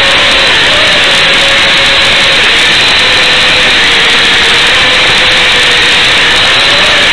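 Loud steady hiss of an analog FPV video link's audio recorded by the goggles' DVR, with the 5-inch quadcopter's motor whine wavering in pitch faintly under it.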